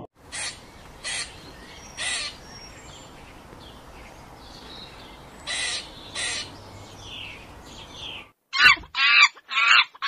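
Eastern gray squirrel calling: short, harsh barks at irregular intervals over faint outdoor background. Near the end a louder run of quick calls from a different animal begins.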